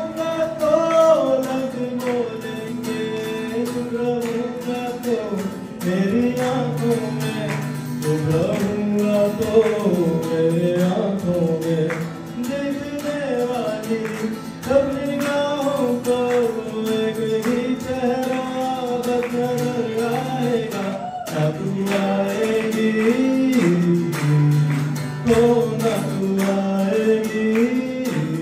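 A man singing a song while strumming an acoustic guitar, voice and guitar each picked up by its own microphone.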